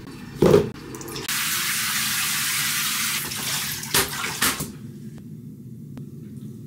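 Handheld shower head spraying water into a bathtub: a steady loud hiss starting about a second in, running for about two seconds and then tailing off. A thump comes just before the spray, and two sharp knocks come as it dies away.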